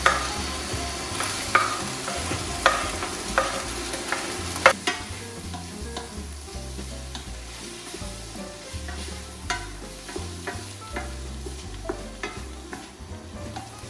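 Sliced tofu frying in sesame oil with garlic and onion in a hot wok, a steady sizzle, with a utensil knocking against the pan now and then as it is stirred. The sizzle is louder for the first few seconds and then eases.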